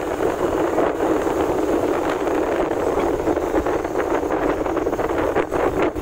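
Steady rush of wind over the microphone, mixed with motorcycle engine and road noise while riding along at speed.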